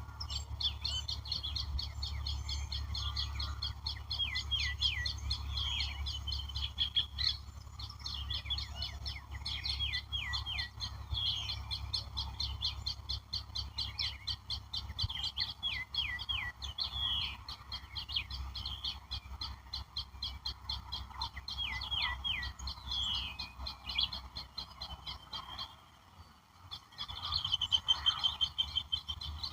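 A chorus of wild birds chirping and singing, with many rapid high chirps and repeated short falling notes. Near the end one bird gives a louder, fast trill. A low rumble runs underneath and drops out shortly before the trill.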